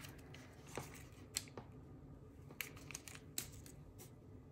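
Faint handling noises: a few scattered small clicks and rustles as hands unroll the paper backing strip of a roll of glue dots and handle a twine bow.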